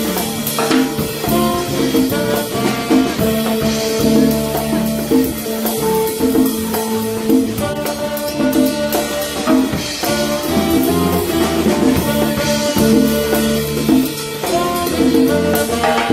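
Live jazz combo playing: a saxophone carries the tune in held notes over a drum kit, electric bass and congas keeping a steady groove.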